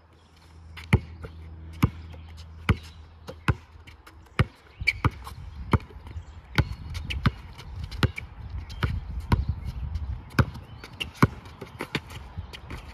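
Basketball dribbled on an outdoor court, sharp bounces repeating at a steady rhythm of roughly one a second.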